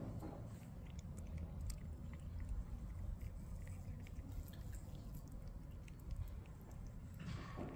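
A cat crunching dry kibble: a run of small, irregular crisp clicks over a steady low rumble.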